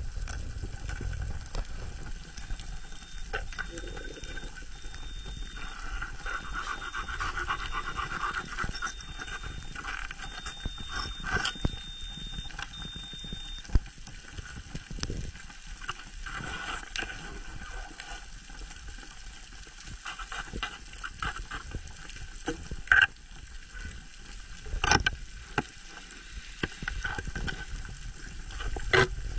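Underwater sound picked up by a camera in its housing: a steady muffled rumble of moving water, broken by scattered sharp clicks and knocks.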